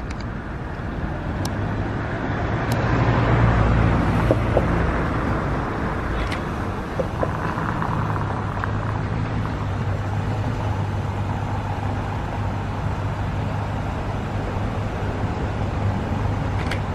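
Engine of a USPS step-van delivery truck running as it drives out and passes close by. The low hum grows louder about three seconds in, then holds steady.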